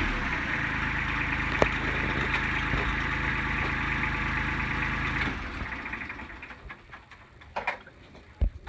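Kubota compact tractor's diesel engine idling steadily, then shut off about five seconds in; a few light knocks follow.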